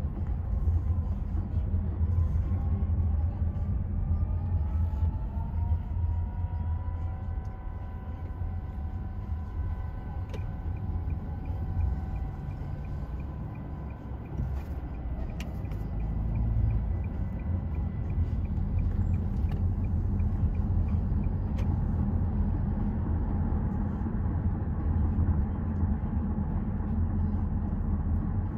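Road noise inside a moving car's cabin: a steady low rumble of engine and tyres. A faint whine rises in pitch over the first several seconds as the car picks up speed, then holds steady.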